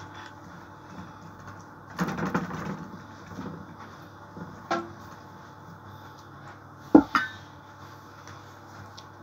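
Kitchen handling sounds from a silicone pastry brush, a steel bowl and a metal baking tray as oil is brushed over pizza dough. A short scraping rustle comes about two seconds in, a light click near the middle, and two sharp knocks close together about seven seconds in, over a low steady hum.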